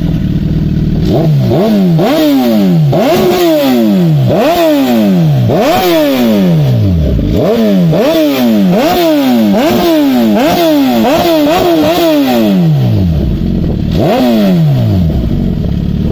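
Suzuki GSX-R1000 inline-four through a Racefit aftermarket exhaust, revved in a long run of quick throttle blips. Each blip rises sharply and drops back toward idle. After a short pause there is one last blip near the end, and the engine settles back to idle.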